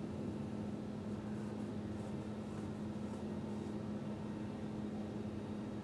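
Distant hydraulic excavators' diesel engines running steadily in a constant drone, with faint clatter of demolition debris a couple of seconds in.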